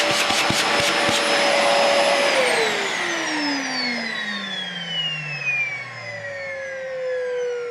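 Dyson DC40 Animal upright vacuum cleaner running with a rapid clicking, then switched off about two seconds in; the motor's whine falls steadily as it spins down. About six seconds in, a separate tone sets in and falls slightly: the odd noise this vacuum makes when switched off, whose cause the owner has no idea of.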